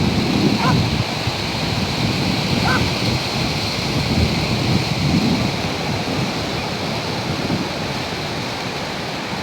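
Sea surf on a beach: a steady rush of breaking waves, with wind on the microphone.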